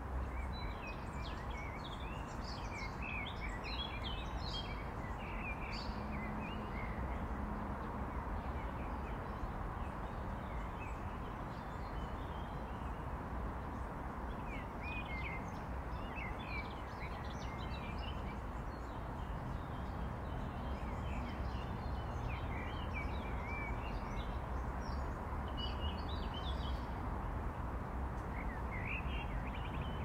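Steady hum of distant city traffic with small birds chirping and twittering on and off above it.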